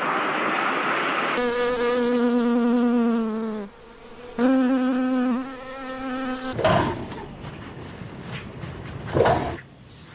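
A flying insect buzzing close by in two steady spells of about two seconds each, after a second or so of rushing noise and followed by softer rustling.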